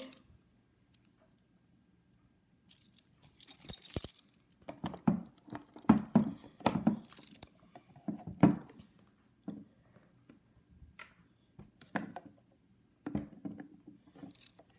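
Toy keys on a ring jangling and clicking against a wooden toy door and lock as a key is fitted and turned. Irregular light knocks and clicks start a couple of seconds in and are busiest in the middle.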